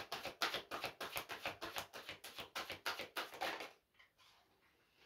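A deck of tarot cards being shuffled by hand: a quick, even run of soft card slaps, about six or seven a second, that stops a little before four seconds in.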